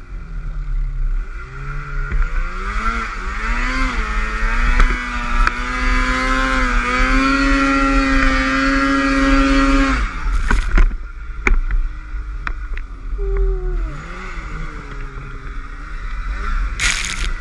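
Polaris Axys 800 Pro RMK snowmobile's two-stroke twin engine revving under load through deep snow. Its pitch climbs in steps and holds high for several seconds, drops sharply about ten seconds in, then rises and falls with the throttle. A short rush of noise comes near the end.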